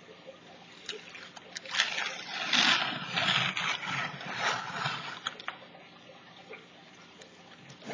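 A thin painted plastic sheet crinkling and rustling as it is handled and moved for about three and a half seconds, with a few light clicks before and after.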